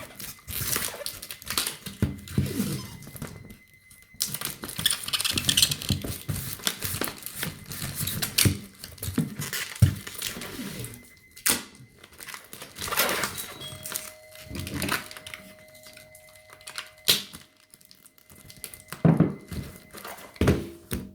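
Hand packing: brown packing tape pulled off the roll and torn, bubble wrap and cardboard crinkling and rustling, with scattered knocks and thuds of the box being handled.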